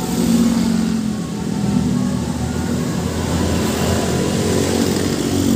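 Bus engine running and accelerating, a rough low rumble.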